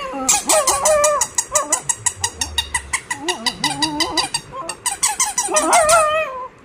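A pet's high, squeaky vocalising: wavering, whine-like squeaks that glide up and down, over a fast run of sharp clicks.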